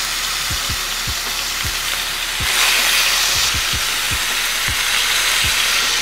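Marinated oxtail pieces searing in hot oil in a stainless skillet, a steady loud sizzle that grows louder about two and a half seconds in. A low background music beat thumps underneath.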